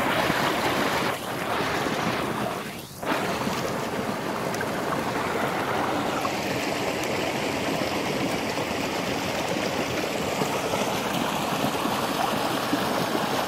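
Steady rush and splash of water pouring down a chute onto the paddles of a homemade water wheel, briefly dipping twice near the start.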